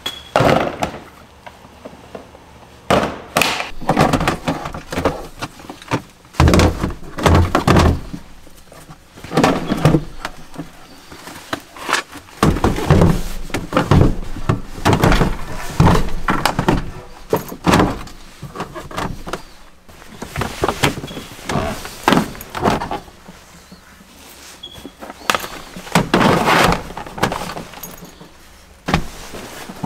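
Hard plastic cases and DeWalt tool boxes being set down, shoved and slid into the back of a Land Rover Defender: a long string of irregular thuds, knocks and scrapes, some with heavy low bumps against the vehicle's floor.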